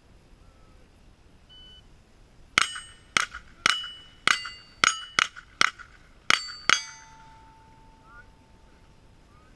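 .22 rimfire rifle firing about ten quick shots over four seconds at steel plate targets, each hit ringing with a metallic clang at a different pitch. After the last shot one plate keeps ringing for a couple of seconds.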